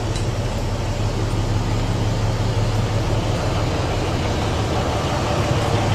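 Large bus diesel engine idling steadily, a constant low hum.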